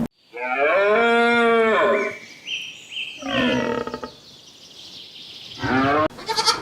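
An animal calling: one drawn-out pitched call of about a second and a half, then several shorter calls with pauses between them.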